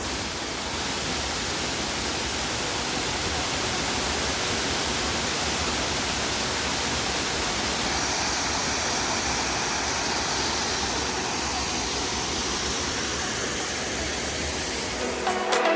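Waterfall: a steady, unbroken rush of falling water. Background music starts near the end.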